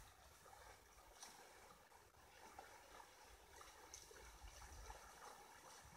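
Near silence with the faint, steady rush of flowing river water.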